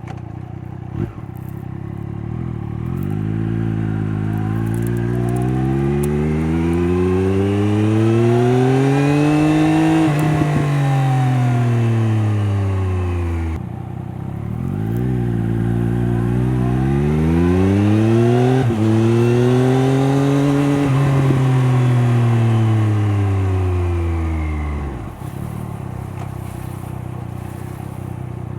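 Triumph Daytona 765 Moto2's inline three-cylinder engine through its stock Arrow exhaust, heard from the bike while riding. Its pitch climbs steadily under acceleration to a peak about ten seconds in, falls as the throttle comes off, then climbs and falls again in a second pull, easing back near the end.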